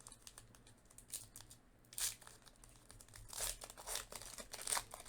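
Baseball card packs being opened and handled: wrappers crinkling and tearing in short, irregular bursts, busiest in the second half.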